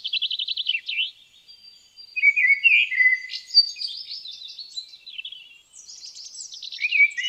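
Several songbirds singing and chirping at once in woodland: a fast trill in the first second, then a mix of short varied chirps and a longer whistled note.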